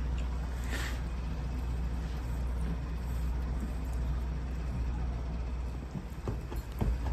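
A steady low hum with a faint hiss over it; the hum drops out about six seconds in and a few soft clicks follow.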